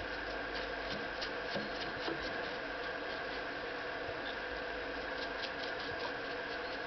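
Light rubbing, scraping and small clicks of hands working on a machine, over a steady hum.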